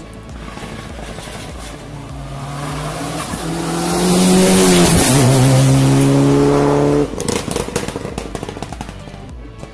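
Rally car's engine coming up the hill under hard acceleration, rising in pitch and growing loud as it nears, with a brief dip at a gear change about five seconds in. The engine sound cuts off abruptly about seven seconds in.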